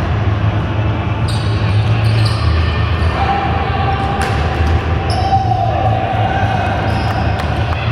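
Sound of an ultimate frisbee game in play in a large echoing hall: players' movement and distant calls over a steady low hum, with a held tone for a few seconds in the middle.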